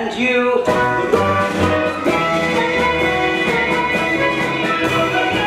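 Musical's accompanying band playing a number: sustained chords over a steady bass line, with no singing.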